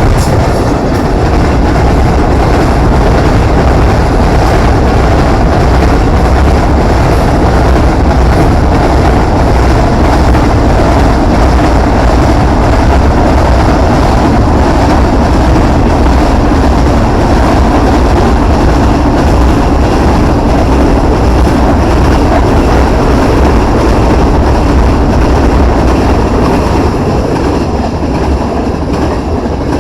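Freight train of empty container flat wagons rolling steadily past, with wind rumbling heavily on the microphone; it eases slightly near the end.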